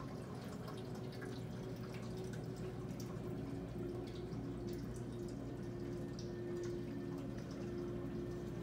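Water dripping and trickling steadily down a terrarium's rock-wall waterfall, many small irregular drips over a steady hum.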